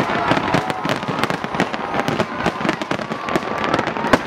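Dense barrage of aerial fireworks: many shells bursting in rapid, overlapping succession, with bangs and crackling.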